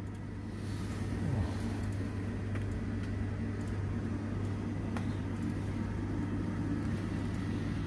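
Steady low machinery hum with a few faint clicks.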